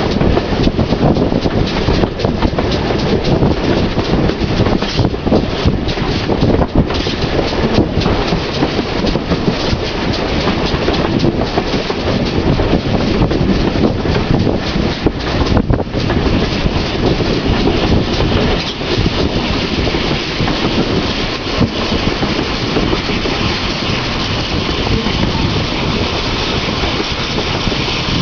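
Train hauled by a GWR pannier tank steam locomotive running along the line, heard from just behind the engine: a loud, steady running noise of wheels on the track, with wind buffeting the microphone.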